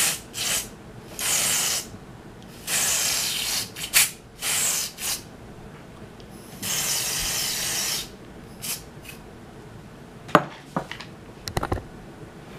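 Jerome Russell temporary hair colour spray can sprayed onto hair in about seven short hissing bursts, each from a fraction of a second to about a second and a half long. A few sharp clicks and knocks follow near the end.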